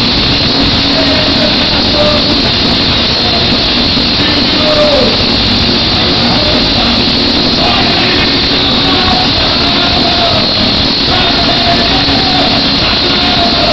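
A large concert crowd in an arena cheering and shouting between songs: a steady, dense din with faint voices wavering through it.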